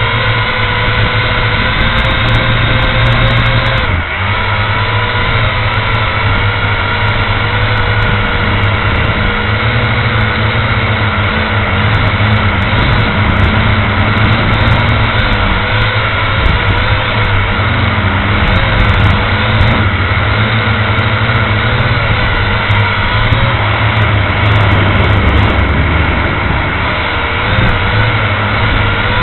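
Electric motors and propellers of a small radio-controlled aircraft, heard through the camera it carries: a loud, steady whine whose pitch wavers slightly as the craft flies, with a brief dip about four seconds in.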